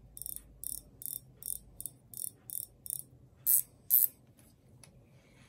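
Shimano Exsence BB spinning reel being cranked by hand, giving an even, high-pitched ticking about three times a second. Two louder clicks come about three and a half and four seconds in.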